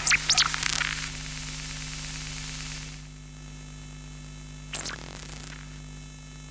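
Electromagnetic interference from an old Sony CD player reading data: a steady electrical hum under static hiss, with quick sweeping chirps at the start and again near the end. The hiss thins out about halfway through.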